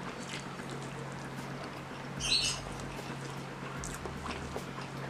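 A person eating spicy meatballs and sambal-soaked rice by hand: chewing and wet mouth and finger sounds, with small scattered clicks and one short, louder, squelchy sound about two seconds in, over a steady low hum.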